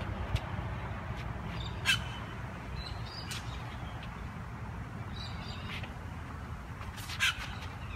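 Light ticks of a tennis ball bouncing off the edge of a racquet frame over a steady low rumble. A few harsh bird calls come through, the loudest about two seconds in and again near the end.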